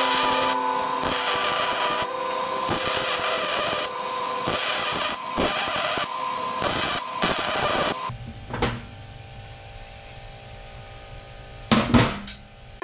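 MIG welding arc crackling and sputtering in several runs with short pauses as steel suspension link tubes are welded back together; the arc stops about eight seconds in. A steady hum is left, and near the end there are a few sharp metal clunks as the links are set down on the steel table.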